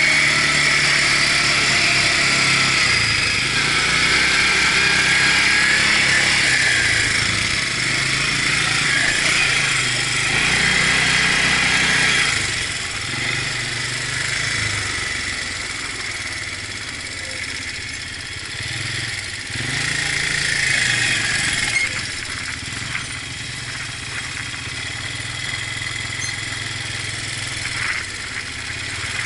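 Quad bike (ATV) engine running as it rides across sand dunes, its pitch shifting up and down with the throttle. It is louder for about the first twelve seconds, then quieter as the riding eases off.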